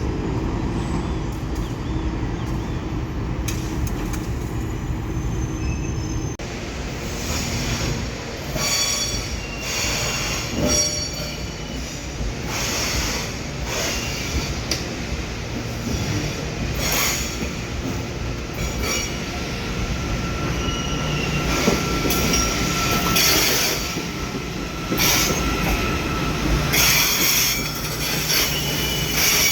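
Train rolling on the rails with a steady low rumble. From about six seconds in come repeated sharp metallic screeches of wheels squealing against the rails.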